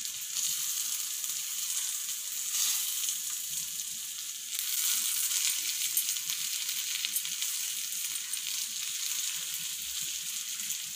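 Stuffed brinjals sizzling and crackling in hot oil in a cast-iron kadai while a wooden spatula turns them one by one. The sizzle swells a little about two and a half seconds in and again a couple of seconds later.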